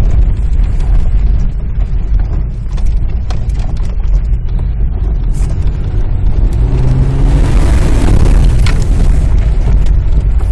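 Jeep driving through floodwater, heard from inside the cabin: a steady low engine and road rumble, with a louder rush of water spraying against the vehicle from about seven seconds in.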